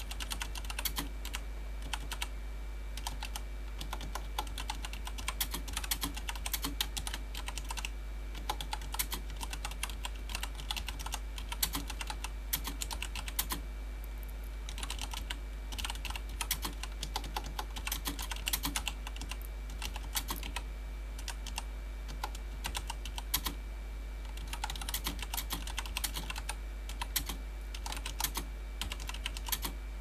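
Steady touch typing at about 50 words per minute on a CM Storm QuickFire XT mechanical keyboard with Cherry MX Brown switches, thick PBT keycaps and soft O-rings: a fast run of keystroke clicks, with brief pauses now and then.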